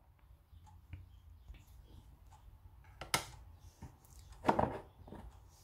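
Quiet kitchen room tone with a few light knocks from bowls being handled; the loudest is a short knock about four and a half seconds in, after a sharper click about three seconds in.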